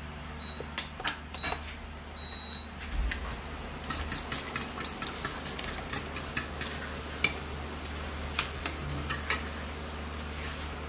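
Eggs being beaten in a bowl with a utensil. A few scattered knocks come early, then a quick run of clicks of the utensil against the bowl from about four seconds in.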